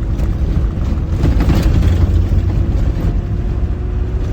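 Land Rover engine and drivetrain running under load on a dirt trail climb: a steady low rumble with a held whine, and a few knocks and rattles about a second and a half in.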